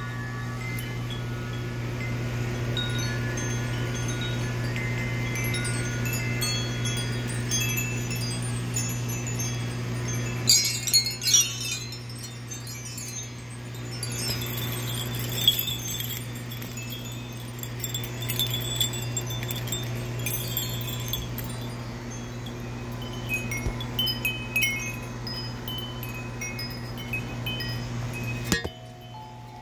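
Several hanging metal tube wind chimes ringing irregularly, overlapping tones that sound and fade, with a brighter cluster of strikes about a third of the way through. A steady low hum runs underneath and stops shortly before the end.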